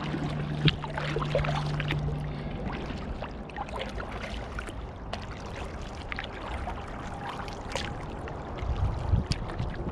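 Kayak paddling on flat water: the paddle blades dip in and water trickles and drips off them, with scattered small splashes and knocks.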